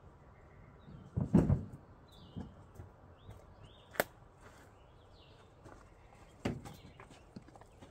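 Footsteps and handling knocks around a trailer hitch: a heavy thump about a second and a half in, a sharp click near the middle and another thump later, with faint bird chirps in the background.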